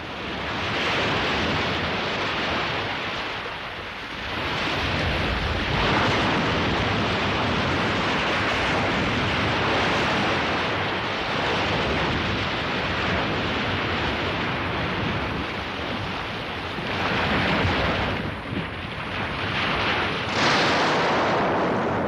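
Sea waves surging and crashing: a dense rush of surf that swells and eases again and again, with a sharp surge about twenty seconds in.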